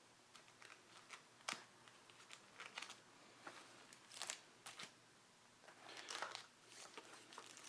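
Faint crinkling and rustling of plastic comic book bags, with a few light clicks, as comics are handled one after another.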